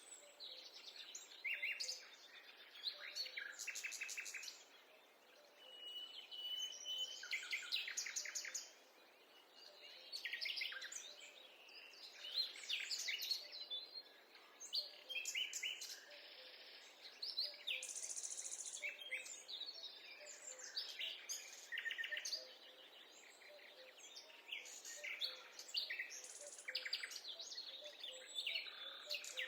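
Several forest birds singing and calling over one another: quick chirps, rapid trills and a few held whistled notes, rising and falling in loudness over a faint background hush.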